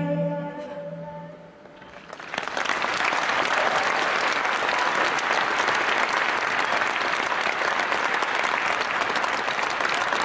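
The song's last note fades out over the first couple of seconds, then a concert audience breaks into applause about two seconds in and keeps clapping steadily.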